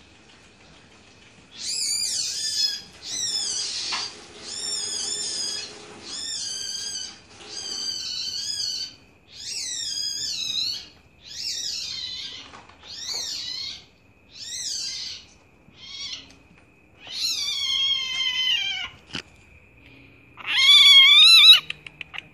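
Civet cub giving a run of about a dozen high, mewing calls, one every second or two, each falling or wavering in pitch, the last and loudest near the end. These are the distress cries of a cub separated from its parents.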